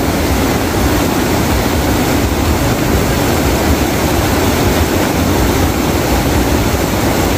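Heavy rain falling steadily: a loud, even hiss with no breaks.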